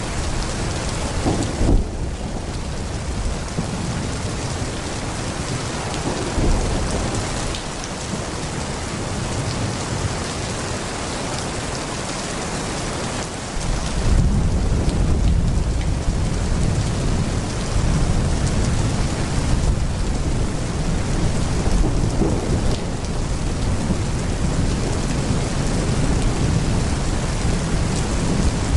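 Heavy rain falling steadily, with rolling thunder rumbling underneath; the thunder grows louder and deeper about halfway through and keeps rumbling.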